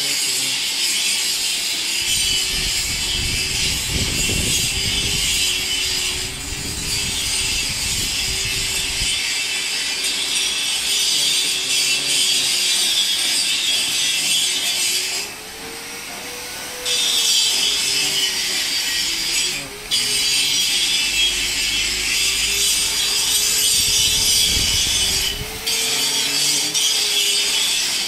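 Chaff cutter machine running, its cutter head spinning with a steady loud hiss over a wavering hum; the hiss briefly drops a few times.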